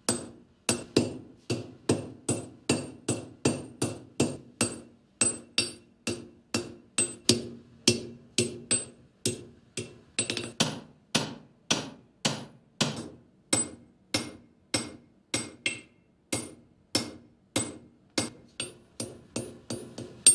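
Blacksmith's hand hammer striking red-hot iron on an anvil in steady blows, about two a second, each with a short metallic ring. The iron bar's end is being forged into a round disc.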